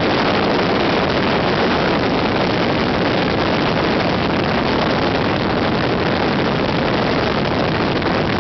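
Steady rush of wind and engine from a moving vehicle at road speed, heard from on board, with no breaks or changes in pitch.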